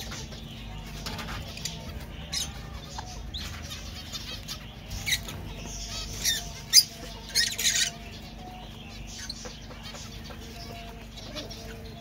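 Zebra finches in an aviary: a scatter of short, sharp chirps and wing flutters, busiest between about five and eight seconds in.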